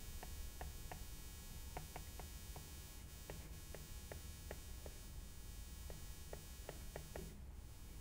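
Faint, light taps of a stylus on a tablet screen during handwriting, irregular, about three a second, over a low steady hum.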